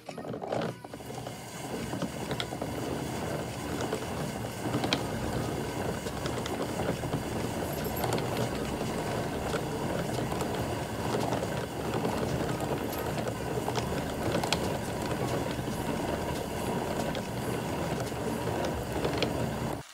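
Yarn ball winder turning as yarn is wound into a cake, the yarn drawn through a yarn counter: a steady mechanical whir with scattered light clicks, cutting off suddenly at the end.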